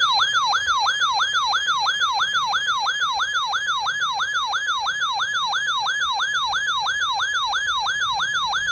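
Electronic warbling siren alert tone announcing an incoming severe thunderstorm warning. Its pitch sweeps steadily up and down about three and a half times a second.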